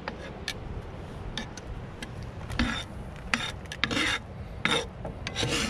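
Metal tongs scraping and tossing sautéed peppers and onions around a cast-iron skillet: a series of short rasping scrapes, irregularly spaced about a second apart.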